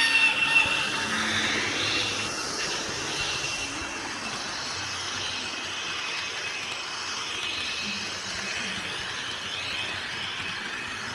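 Märklin H0 model train running on the track: a steady rolling, whirring noise with a faint whine, a little louder in the first two seconds.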